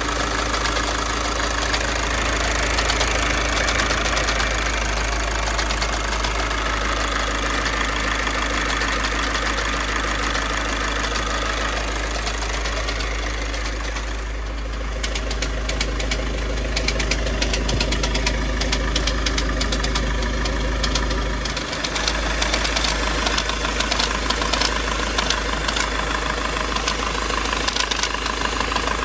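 VW TDI diesel engine running at idle with a loud metallic rattle and knocking from the engine and gearbox, the noise of a failing dual-mass flywheel. The rapid clatter stands out more sharply from about halfway.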